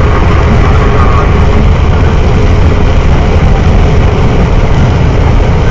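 Steady low rumble of a truck's engine and tyres on a wet highway, heard from inside the cab, with an even hiss of road spray over it.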